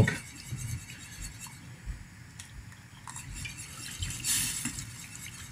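Wire balloon whisk stirring a thickening white sauce (roux and milk) in a metal saucepan: faint scraping and light clinking of the wires against the pan, a little louder about four seconds in.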